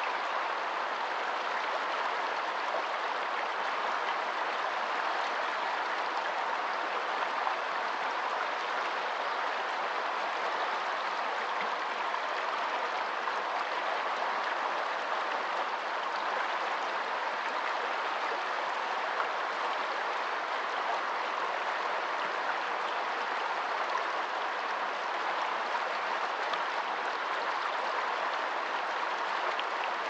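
Shallow woodland river rushing steadily over stones and rocks, a continuous even flow of water.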